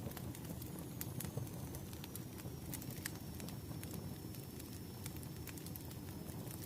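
Burning firewood crackling: irregular sharp pops and snaps over a low, steady rumble of flames.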